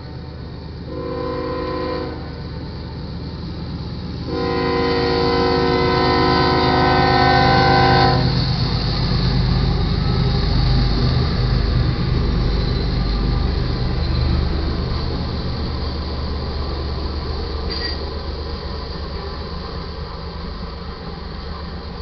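Freight train's lead locomotive, a GE AC45CCTE, sounding its air horn for the crossing: a short blast about a second in, then a long one of about four seconds. After the horn stops, the locomotives and freight cars rumble through the crossing, loudest just after the horn and slowly fading.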